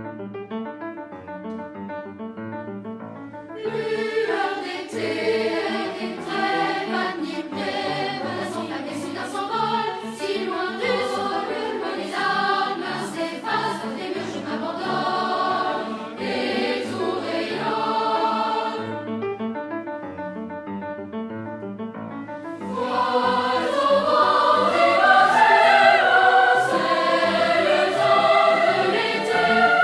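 Background music: a choral song with keyboard accompaniment. It opens softly on the keyboard, the choir comes in about four seconds in, drops back to a quieter passage a little past the middle, then returns louder near the end.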